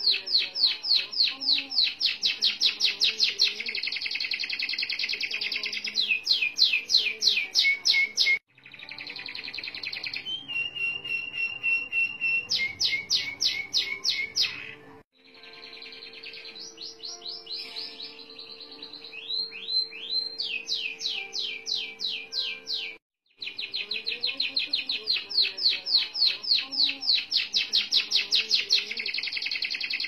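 Domestic canary singing long rolling trills of fast repeated notes, run together in long unbroken phrases. The song cuts off abruptly three times and starts again each time.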